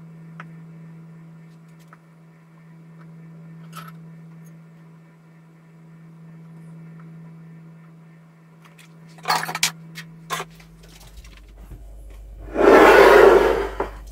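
A few light clicks and taps of cheese slices being set on a plate, then, near the end, a loud crinkling rustle about a second and a half long as a packet of dried French herbs is handled and opened. A steady low hum runs under the first part and stops before the rustle.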